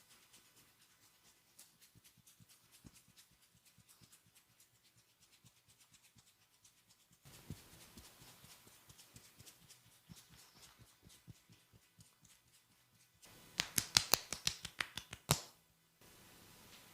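Rapid sharp clicks and crackles from a barber's hands working on the scalp and skin during a head massage. They are faint at first and grow a little louder part way through. About thirteen seconds in comes a dense two-second run of much louder snapping cracks.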